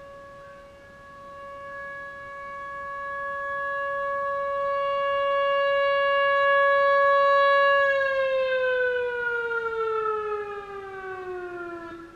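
Whelen WPS-4004 electronic rotating siren sounding its steady alert tone, growing louder as it turns. About eight seconds in, the tone glides smoothly down in pitch, winding down and ending at the close.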